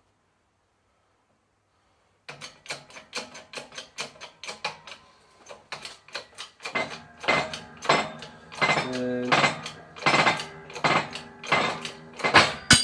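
Rapid metallic clicking and clattering from a shop press forcing a bearing race out of a differential housing, growing louder, ending near the end in one sharp ringing metal crack as the race breaks free.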